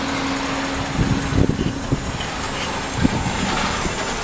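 Wind rushing over the microphone and the road noise of a 1958 Schwinn Mark IV Jaguar bicycle coasting downhill on city pavement, with a few low thumps about a second in and again near three seconds. A steady low hum stops about three seconds in.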